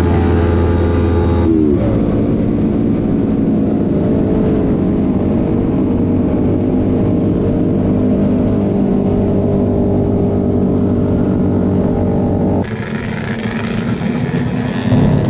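Sport motorcycle engine and exhaust cruising at a steady speed from the rider's seat. The engine note dips about a second and a half in, then holds steady. Near the end it cuts abruptly to a noisier sound with wind on the microphone and the motorcycles of the group around it.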